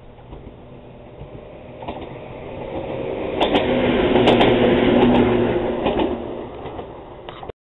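Echizen Railway electric railcar passing close by. Its running noise and motor hum build to a peak about four seconds in, then fade, with a few sharp clacks from the wheels at the loudest point. The sound cuts off abruptly near the end.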